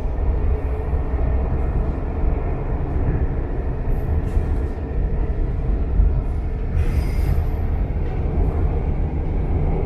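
CAF-built driverless metro train running between stations, heard from inside the car: a steady low rumble of wheels and traction gear, with brief higher squeaks about four and seven seconds in.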